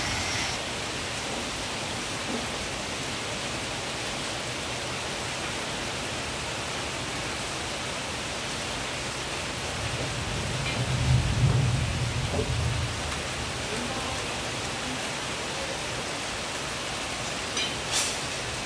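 Steady rain falling, an even hiss. About ten seconds in, a low rumble swells and fades over a few seconds, and a couple of sharp ticks come near the end.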